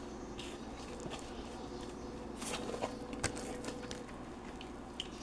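Faint, scattered soft knocks and taps of hands punching down and dividing risen bread dough.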